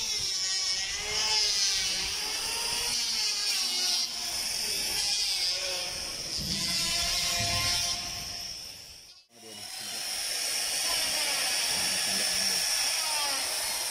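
An electric power tool running with a steady, wavering high whine, under faint voices. The sound drops out briefly about nine seconds in, then the whine resumes.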